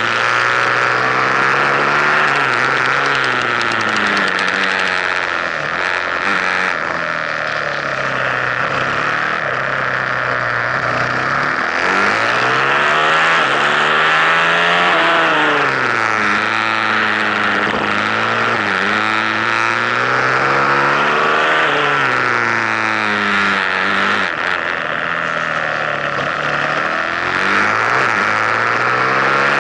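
KTM 450 SMR supermoto's single-cylinder four-stroke engine heard onboard, revving up and dropping again over and over as the bike accelerates out of bends and shuts off for the next, with steady wind noise on the microphone.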